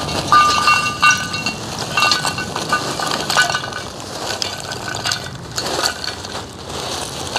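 Lumps of natural charcoal poured from a plastic bag into an old steel wheel rim, tumbling and clinking against the metal and each other, thinning out after about three and a half seconds.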